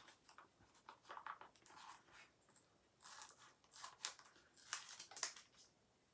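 Scissors snipping at a small plastic packet in a series of short, faint cuts, with the plastic crinkling, as he tries to cut it open from the bottom.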